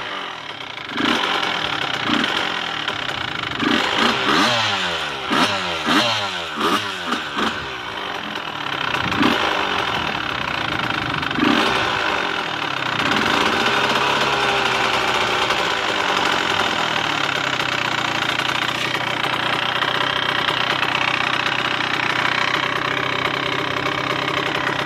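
Dirt bike engine just started, revved in short uneven bursts at first. About halfway through it settles into running steadily at idle.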